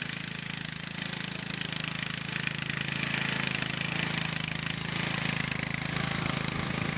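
Craftsman DYT 4000 riding lawn mower running steadily as it mows, an even engine drone with a hiss over it. It grows slightly louder around the middle as the mower nears.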